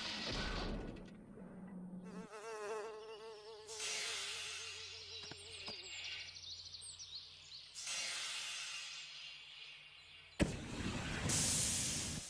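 Film sound-design ambience of a jungle. A warbling, buzzing insect-like call and a few high chirps sound over a hissing haze, with a sharp knock about ten seconds in.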